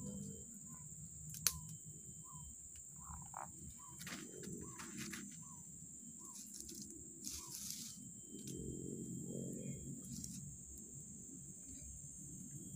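Tropical forest ambience: a steady high insect drone, with a bird repeating short chirping notes about every half second for several seconds. There is one sharp click about a second and a half in, and a few brief rustles.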